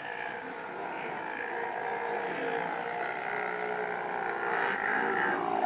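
Sea lion burping: one long, continuous rough growl that holds steady, with no breaks.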